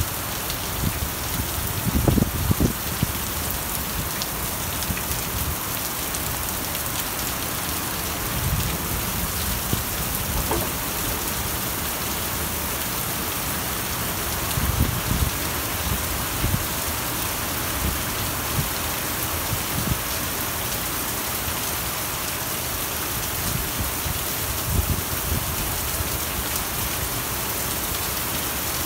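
Heavy thunderstorm rain pouring steadily. A few brief low rumbles swell up over it, the strongest about two seconds in and again at about fifteen and twenty-five seconds.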